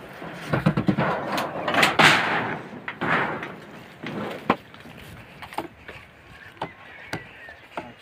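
Handling knocks of a plastic jerrycan being pulled out of a sheet-metal and wood shed, loud and irregular for the first two or three seconds, then thinning to scattered light clicks and knocks as the can is carried.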